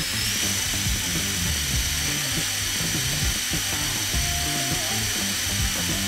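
LEGO electric motor spinning a model helicopter's main rotor, a steady whirring whine that holds at one pitch.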